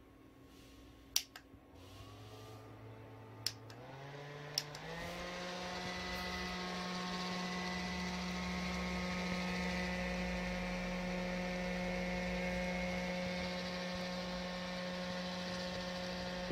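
Small handheld battery fan switched on and stepped up through its speeds: three button clicks, each followed by its motor hum jumping up in pitch, then a steady fan whir.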